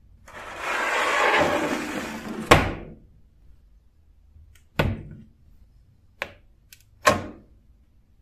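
A rough scraping, sliding noise for about two seconds that ends in a sharp knock, then three short sharp clacks as a rusty steel knife blade and its round metal guard are set down on a plastic tray.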